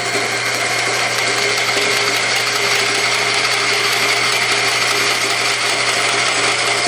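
Rikon band saw running with a steady hum while a wooden board is fed slowly into its blade for a short cut.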